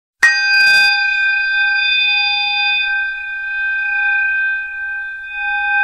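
A struck bell: one sharp strike, then a long ringing tone with several overtones that wavers and slowly fades.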